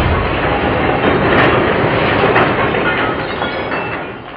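CRT television's picture tube bursting under a hit from an air cannon: a long, loud clattering crash of shattering glass and scattering debris that slowly dies away.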